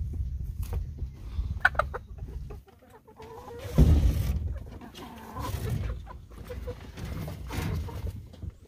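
Chickens clucking now and then, with a loud thump and a rush of noise about four seconds in.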